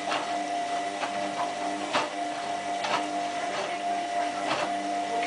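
Hotpoint Aquarius+ WMF740 washing machine in its main wash: the drum motor hums steadily as the drum turns, with a short knock roughly once a second.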